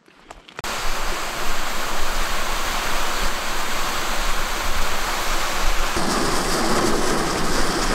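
Plastic ice-fishing sled loaded with buckets being dragged over snow-covered ice: a steady scraping hiss that starts suddenly and runs on without a break.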